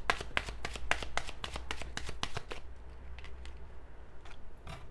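A deck of divination cards being shuffled by hand: a quick run of flicking card clicks that thins out to a few scattered clicks after about two and a half seconds.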